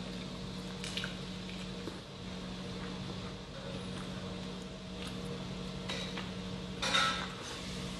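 A man eating a pan-toasted chicken shawarma wrap: soft handling clicks, then a short crunchy bite about seven seconds in, over a steady low hum.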